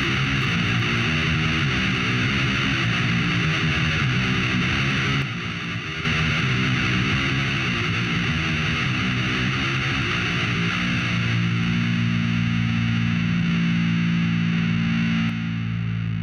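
Heavy metal music with distorted electric guitars. It drops out briefly about five seconds in. From about eleven seconds in it settles into held low notes, and near the end the top end falls away.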